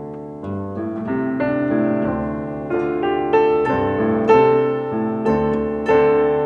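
Grand piano playing slow chords, each struck chord ringing on into the next, building louder toward the middle.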